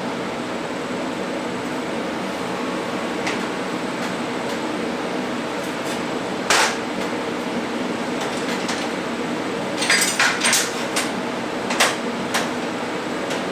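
TIG welding on stainless steel: a steady arc hiss with a faint hum, broken by a few sharp clicks, one about halfway and a quick cluster near the end.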